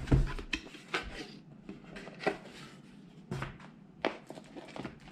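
Just-opened cardboard rifle-scope box and its contents being handled: a handful of sharp knocks and thuds about a second apart over light rustling, the heaviest thud right at the start.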